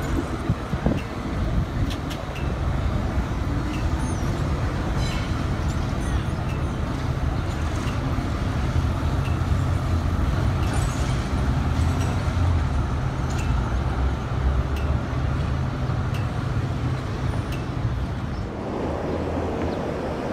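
Z-class Melbourne trams rolling past close by: a steady low motor and wheel hum over city street traffic, with faint regular ticks about once a second. About 18 seconds in it gives way to a broader, more distant traffic noise.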